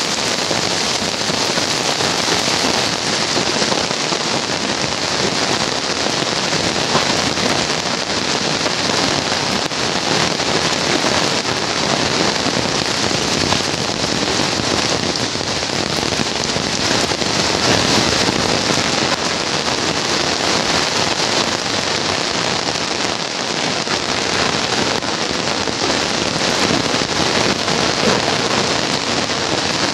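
Heavy rain pouring steadily onto paved streets, an even hiss with no letup.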